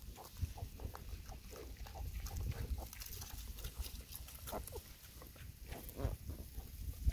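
Several piglets grunting and squeaking in short, scattered calls.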